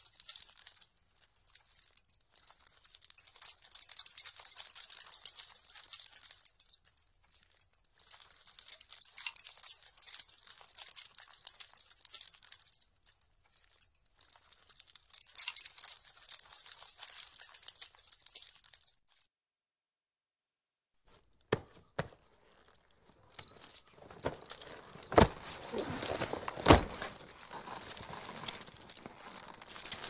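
Foley of riding harness: the metal fittings and spurs jingle and clink at a near-steady pace, a run of high metallic jingles. It stops about two-thirds of the way in, and after a short silence a duller rattling follows, with a few sharp knocks.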